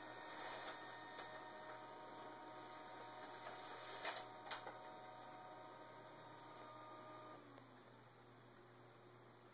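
Faint steady hum with a thin whine of several tones that slides downward and dies away about three quarters through. Two soft clicks come near the middle.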